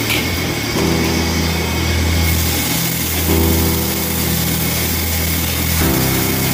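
Steady mechanical drone of a commercial wok range's gas burner and blower. Lobster pieces sizzle in the hot wok for the first couple of seconds.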